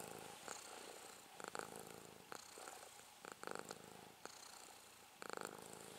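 Faint purring of a domestic cat being scratched under the chin, the purr swelling about every two seconds.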